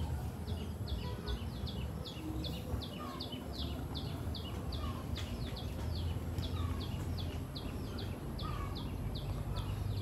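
A bird calling a long series of short, high chirps, each sliding downward, two or three a second, with a lower note now and then, over a low steady rumble.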